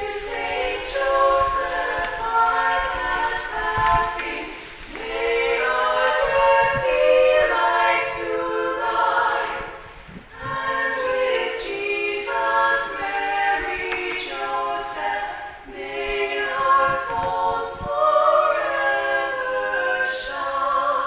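Four female voices singing a hymn a cappella, several parts at once, with brief breaths between phrases, in the reverberant loft of a church.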